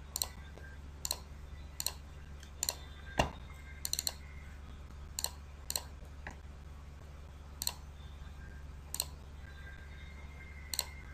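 Computer mouse clicking, single clicks about once a second at irregular spacing, with a quick run of three near four seconds in, over a steady low hum.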